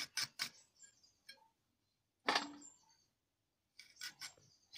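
Crisp cutting clicks of a curved hand blade slicing through raw mango, with light clinks of pieces dropping onto a metal plate: a few at the start, a louder one midway, and a cluster near the end.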